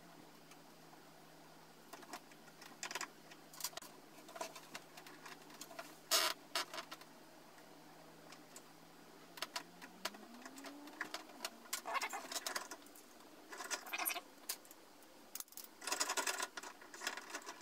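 Small metal clicks and rattles from a brass-bodied padlock being handled and worked while clamped in the jaws of a vacuum-base hobby vise, coming in short irregular clusters with a louder burst about six seconds in and another near the end.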